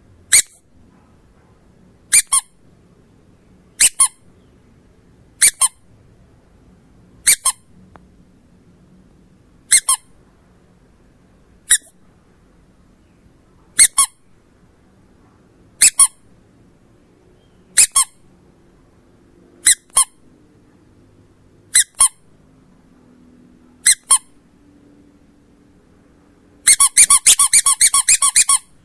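Squeaky dog toy being squeezed: short, high-pitched squeaks, singly or in quick pairs, about every two seconds, then a rapid run of squeaks near the end.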